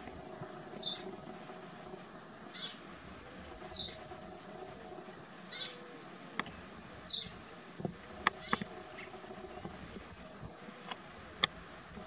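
Common kestrel calling: a thin, high squeal that slides down in pitch, given six times at intervals of one and a half to two seconds. Several sharp clicks come in the second half and are the loudest sounds.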